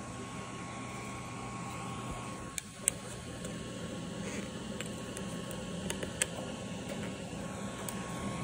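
A steady machine hum with a thin high tone in it, broken by a few sharp clicks and taps of a metal scraper against a glass plate, twice around three seconds in and once near six seconds.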